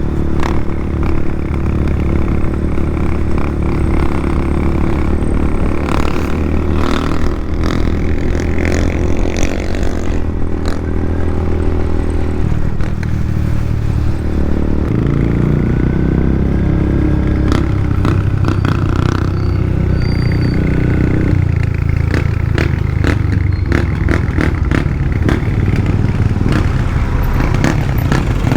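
Yamaha Sniper 150's single-cylinder engine running through an open EXOS R6 exhaust pipe with no silencer. Its note steps down about twelve seconds in and changes again around fifteen and twenty-one seconds, with scattered clicks over it.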